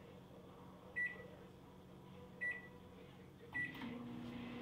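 Microwave oven beeping three times as its buttons are pressed, then starting a heating cycle with a steady hum near the end.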